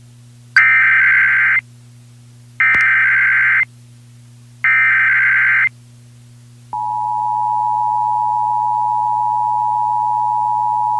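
Emergency Alert System test tones: three one-second bursts of the SAME digital header, about a second apart, then, about seven seconds in, the steady two-tone EAS attention signal starts and holds.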